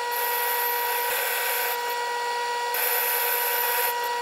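South Bend Heavy 10 lathe running with a steady whine while boring out a dial ring, with a high hiss that comes on twice as the boring tool cuts.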